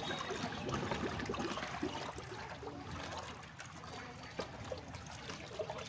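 Cow slurping watery feed mash from a large aluminium basin, with wet sloshing and dripping as a hand stirs the mash. A steady run of small wet clicks and splashes.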